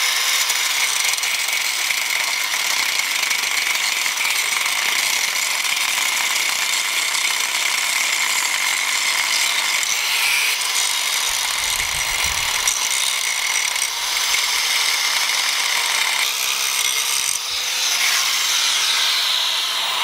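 Milwaukee power tool grinding away a metal mounting boss on the front of a Ford 4.6 3V V8 so a power steering pump will clear. It is a steady, high-pitched grinding with only brief dips.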